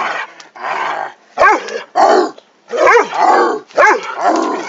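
Dog growling and barking in rough play, a run of loud barks and growls in quick succession.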